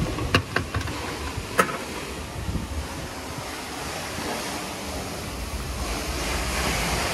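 WashTec SoftCare Bravo rollover car wash running, with a steady rush of water spray hissing onto the car. There are a few sharp clicks in the first two seconds, and the spray grows louder near the end.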